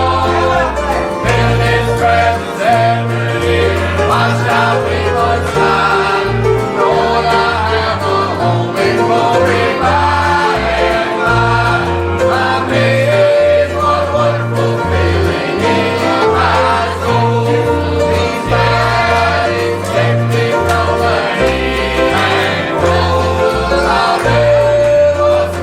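Gospel song sung by voices with instrumental accompaniment, over a steady pulsing bass line.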